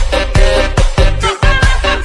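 Upbeat background music with a strong, steady beat.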